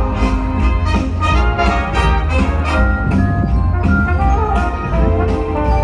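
Christmas show music with brass and a steady beat, played loudly over the show's speakers.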